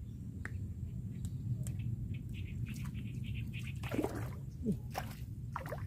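Water splashing and dripping as a hooked fish is struck and pulled up out of the water on a pole rod, starting about four seconds in, over a low steady rumble. Light ticking and dripping sounds come just before it.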